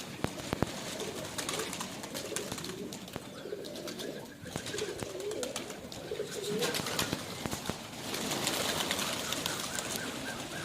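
Domestic pigeons cooing, low wavering coos overlapping, with scattered short clicks.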